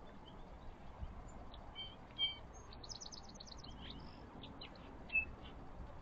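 Small songbirds chirping, with a quick run of about eight rapid high notes around three seconds in and a couple of louder chips near two and five seconds.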